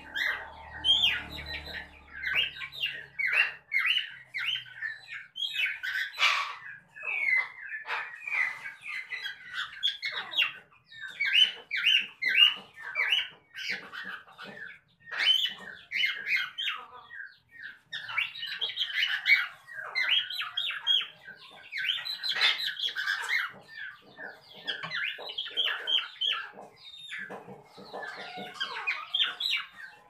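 A small flock of cockatiels chirping and calling without a break: many short, overlapping chirps and squawks, a few calls a second.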